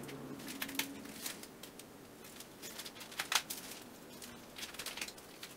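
Knife cutting a slice from a baked treacle tart: scattered short crunches and scrapes as the blade goes through the crust and taps the dish beneath, the sharpest a little over three seconds in.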